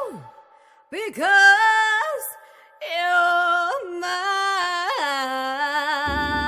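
A woman's voice singing alone, unaccompanied, in sliding, scooping phrases, then a long held note with vibrato; the backing band comes back in near the end.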